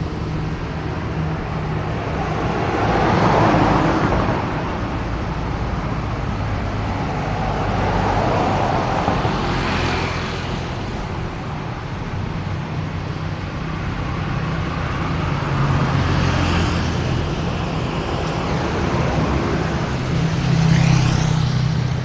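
Road traffic: a continuous rumble of car engines and tyres, with vehicles passing one after another and swelling louder a few seconds in, around the middle and near the end.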